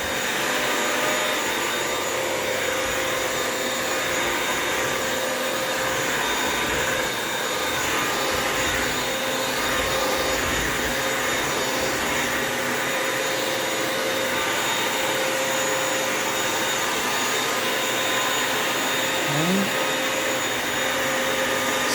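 Bissell wet-dry vacuum mop running steadily while mopping a floor: a continuous motor hum and air rush with a steady high whine.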